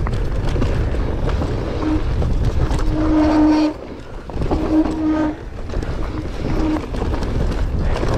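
Mountain bike descending loose, rocky singletrack at speed: steady wind and tyre rumble, with short buzzing tones from the bike that come and go every second or two.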